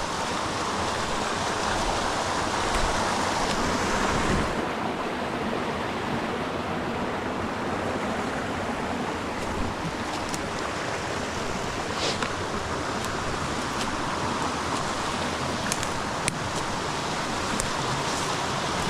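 Creek water rushing steadily over rocks, with a few faint clicks.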